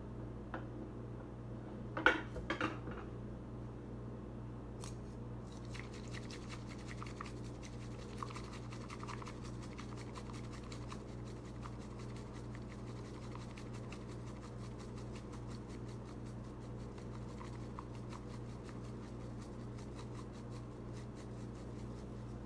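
Bamboo tea whisk (chasen) whisking matcha in a tea bowl: fast, continuous brushing and scraping strokes, after a few knocks about two seconds in.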